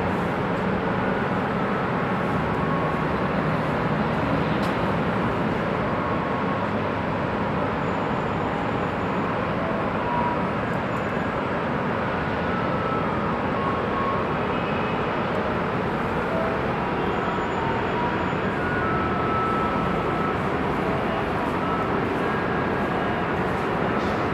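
Steady noise of heavy highway traffic: a continuous wash of tyre and engine sound from many vehicles, with brief faint whines from individual vehicles here and there.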